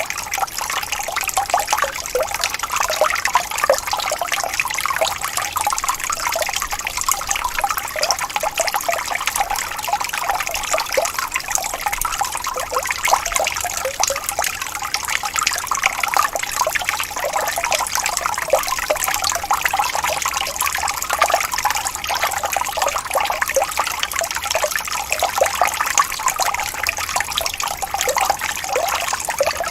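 Stream water running and gently rippling: a steady babble of many small quick splashes and gurgles, without pause.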